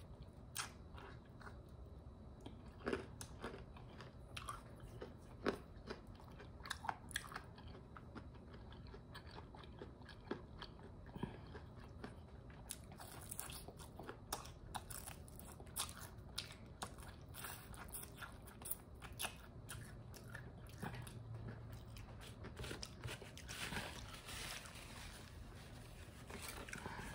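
Close-miked eating of KFC fried chicken: faint, irregular small crunches and mouth clicks of biting and chewing. Near the end a paper napkin rubs against the mouth.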